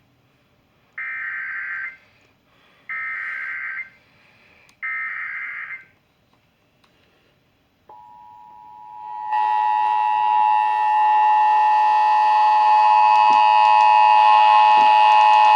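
Emergency Alert System broadcast heard over FM radio. Three SAME header data bursts come first, each about a second long with a second's gap between them, a harsh buzzing warble. After a short silence the steady two-tone attention signal starts faintly about eight seconds in, turns loud a second or so later and holds.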